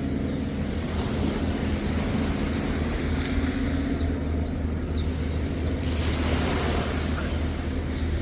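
An engine running steadily with a low, even hum, over the wash of surf and wind.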